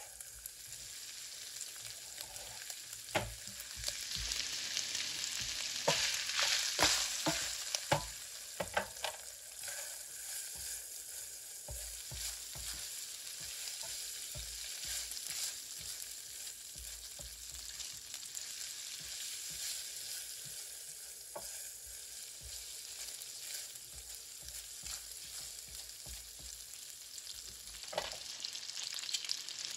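Food sizzling in a hot frying pan, with a utensil now and then knocking and scraping against the pan, several times in a row between about six and nine seconds in and once more near the end.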